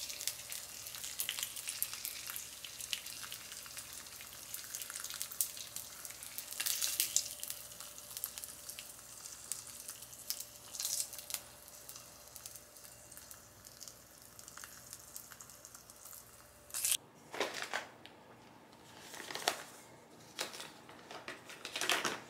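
Food frying in oil in a pan, a steady crackling sizzle with sharp pops. It stops abruptly about 17 seconds in, followed by a few brief kitchen handling noises.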